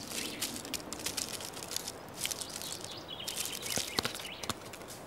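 Red squirrel gnawing and stripping a conifer cone: a fast, irregular run of small crunching clicks, with a few sharper clicks at about four seconds.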